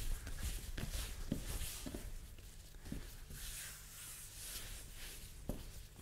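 Hands kneading rye bread dough on a floured worktop: soft rubbing and brushing, with a few dull thuds as the dough is pressed and folded, the clearest one near the end.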